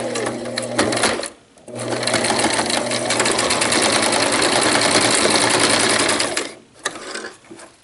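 Electric domestic sewing machine stitching a seam in fabric, with a rapid, even patter of needle strokes. A short run is followed by a brief stop, then a longer steady run of about five seconds that stops near the end.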